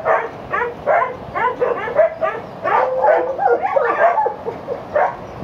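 Several dogs barking and yipping at once, short high calls overlapping and repeating several times a second without a break.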